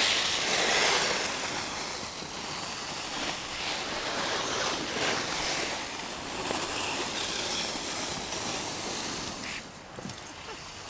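Rushing, surging noise of wind buffeting the camera microphone and skis sliding and scraping over packed snow. It is loudest at the start and eases off near the end.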